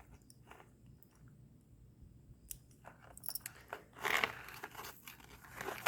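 Small metal clicks of a watch chain's clip being fastened, with the rustle of hands handling the chain and leather slip. There is a cluster of sharp clicks about two and a half seconds in, and louder rustling and scraping about four seconds in.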